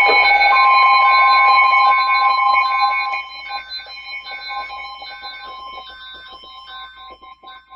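Weather alert radio sounding its alarm for an incoming warning: a repeating electronic beep pattern over a steady alert tone. It is loud for about three seconds, then drops sharply in level.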